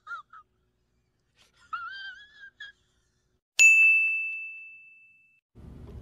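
High-pitched wheezing "silent laugh", squeaky and wavering in pitch, in two short bursts. A single bell ding follows about three and a half seconds in and rings out, fading over nearly two seconds.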